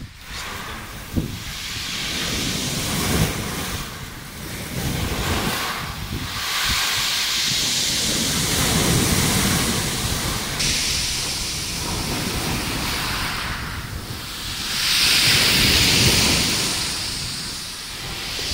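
Surf breaking and washing up a pebble beach, the rush of water swelling and ebbing in waves, loudest about fifteen seconds in, with wind buffeting the microphone.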